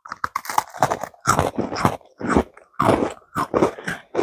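Crunching and chewing of crisp Oreo sandwich cookies, many quick crackling crunches one after another, heard close on clip-on microphones.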